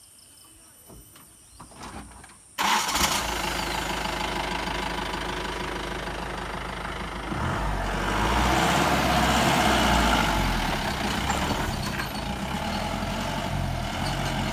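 Mahindra Bolero 4x4 pickup's diesel engine pulling a heavy load over a rocky off-road track. After near quiet it comes in suddenly about two and a half seconds in and runs steadily, then grows louder with a deeper rumble from about seven to eleven seconds in as it works harder.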